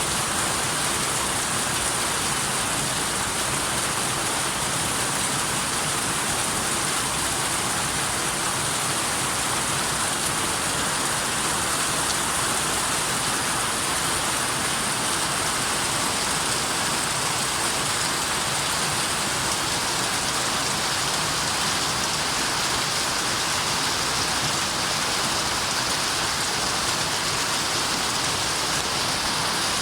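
Steady rain falling, an even hiss that holds the same throughout.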